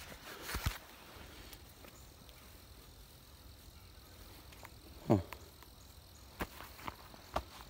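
Quiet outdoor ambience with a steady faint insect hum. Over it come rustles and a few sharp clicks of steps and handling in grass and dry leaves, and a short sound that falls steeply in pitch about five seconds in.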